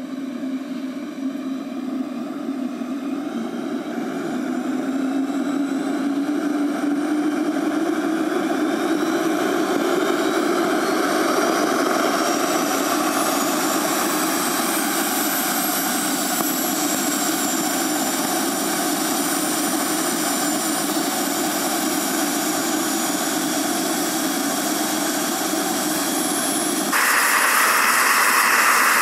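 Model gas-turbine engine of a large scale BO-105 helicopter spooling up, its whine rising in pitch over the first dozen seconds or so, then running steadily. About two seconds before the end the sound abruptly gets louder and brighter.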